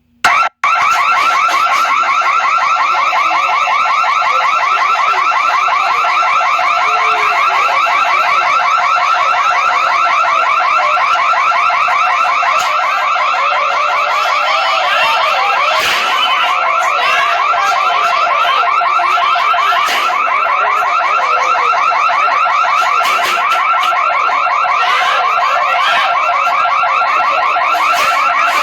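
Loud electronic alarm sounding continuously, a rapid pulsing warble that repeats evenly and does not change.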